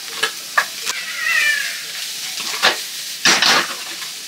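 Food sizzling in a frying pan while a spatula stirs and scrapes it, with sharp clanks of utensil on pan. A short high falling squeal about a second in.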